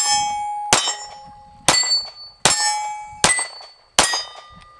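Taurus G2S 9mm subcompact pistol fired six times at a steady pace, a little under a second apart. Each shot is followed by the ringing of a hit steel target plate.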